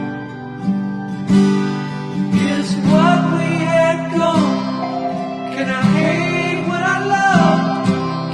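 Background music: strummed acoustic guitar chords with a voice singing long, wavering notes that come in about two seconds in.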